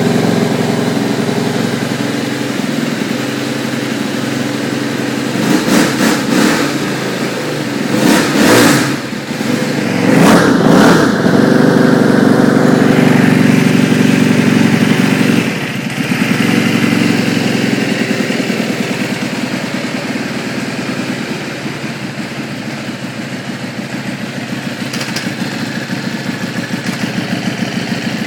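Aprilia SXV 450 V-twin dirt bike engine running after a cold start. It is revved briefly three times, held at a fast idle, then drops to a lower idle about halfway through. Near the end a faint high whine comes in: the odd noise the owner noticed.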